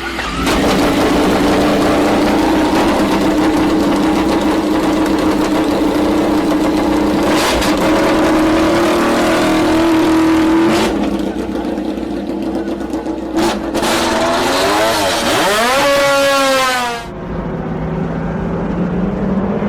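MotoGP racing motorcycle engine at high revs, holding a steady note for about ten seconds. Later its pitch dips and climbs sharply. It breaks off suddenly, and a quieter engine note rises steadily in pitch near the end.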